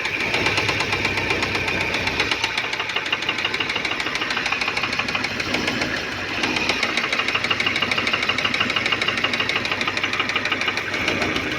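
Fiat Siena engine running with a heavy, rapid knock from the front of the engine, while the oil pressure warning light stays on. The mechanic takes the knock for serious internal wear, with bearing metal in the oil.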